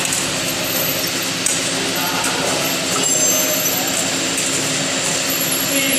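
Self-adhesive labeling machine running: a steady mechanical hum with a thin high whine and a few light ticks.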